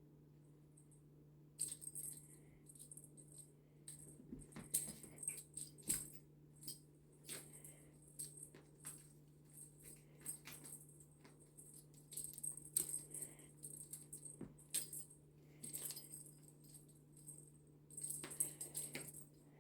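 A feather-on-a-stick cat toy jingling and rattling in irregular short bursts as it is swished about and batted, over a faint steady low hum.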